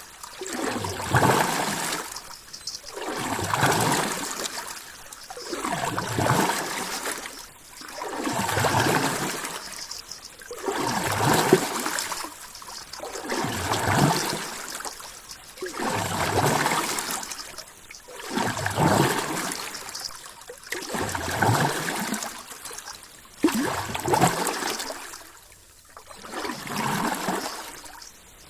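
Rushing water swelling and fading in a steady rhythm, about one surge every two seconds.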